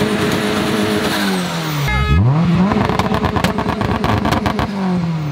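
Honda Civic hatchback's engine revving hard. It is held at high revs, drops to a low idle about two seconds in, then snaps back up and holds there with rapid popping before the revs fall again near the end.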